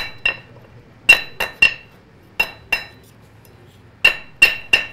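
Blacksmith's hand hammer striking iron held in tongs on the anvil, each blow with a short bright metallic ring. About ten blows come in clusters of two or three with short pauses between.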